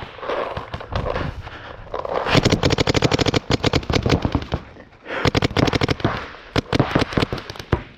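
Paintball markers firing in rapid strings of shots, many a second. There are two long volleys, one starting about two seconds in and one about five seconds in, with a brief lull between them.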